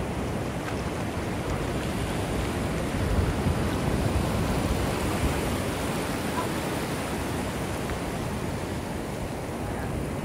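Ocean surf breaking and washing up the beach as a steady, even rush.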